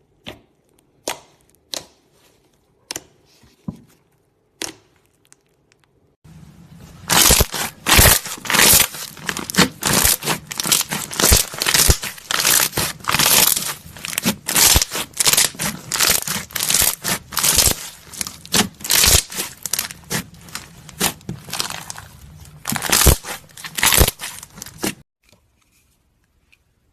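Fluffy slime being squished by hand, starting with a few separate sharp pops, then from about six seconds in a long, dense run of loud crackling and popping that stops shortly before the end.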